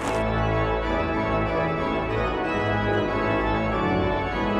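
Background music of sustained, organ-like keyboard chords that change every second or so.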